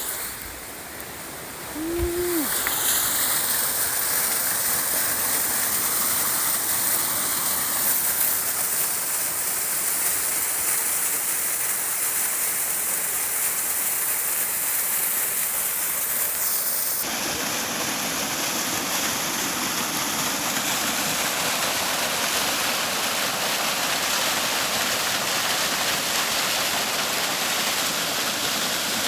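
Steady rushing of water from a small waterfall, its noise spread evenly across the range.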